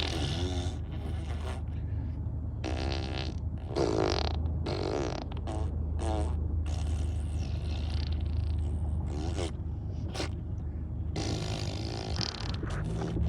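A series of short, wobbling fart sounds, several in a row with gaps between them, over a steady low hum.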